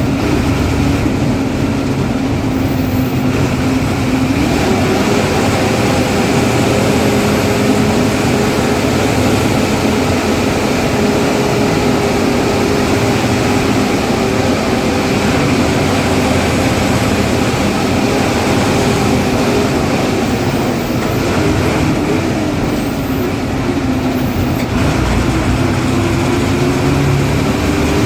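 Ashok Leyland bus diesel engine running hard at road speed, its note rising about four seconds in, dipping a little later, then climbing again near the end.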